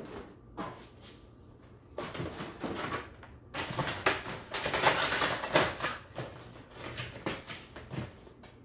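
Plastic and cardboard packaging rustling and crinkling as hands dig out the next miniature, with small clicks and taps. It comes in short spurts at first and is busiest and loudest around the middle.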